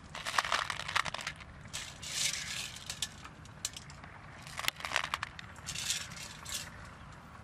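Shellfish being scrubbed together by hand in a stainless steel bowl of water: bouts of clicking and grating shells against each other and the metal, about four bouts with short pauses between.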